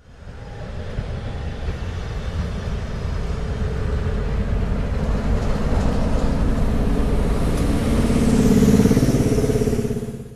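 Diesel locomotive engine running at close range, a heavy low rumble that grows louder towards the end before fading out.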